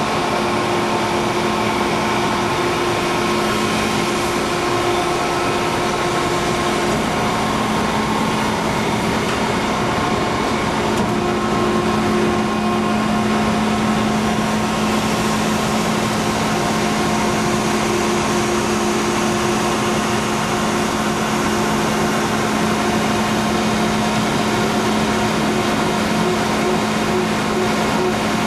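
Balemaster auto-tie baler's hydraulic power unit running, its electric motor and hydraulic pump giving a steady hum with several held tones.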